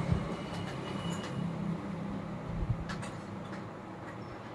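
A few faint clicks and a soft knock as small plastic speargun parts are handled and picked out of a plastic box, over a steady low hum.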